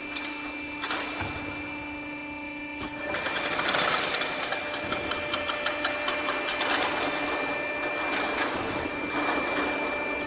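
Automatic strapping machine running: a steady mechanical hum, then from about three seconds in a louder run of rapid clicking, several clicks a second, as the machine works through its cycle.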